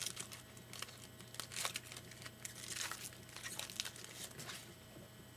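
A trading-card pack wrapper being crinkled and torn open by hand, in irregular crackling bursts that die away about four and a half seconds in.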